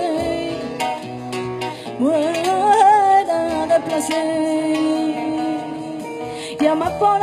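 Woman singing flamenco, sliding up into long held, ornamented notes over acoustic guitar strumming.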